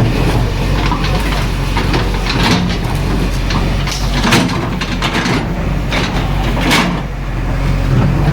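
JCB 3DX backhoe loader's diesel engine running steadily, with a few short scraping clanks from the bucket working soil.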